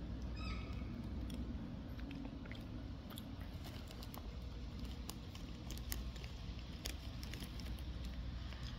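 Crisps being crunched and chewed close to the microphone, with scattered sharp crackles over a steady low rumble.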